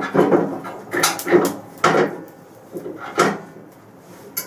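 Heavy cast-iron table of a JET JWBS-18Q bandsaw being fitted onto the saw: a series of metal clunks and scraping knocks, about half a dozen in four seconds.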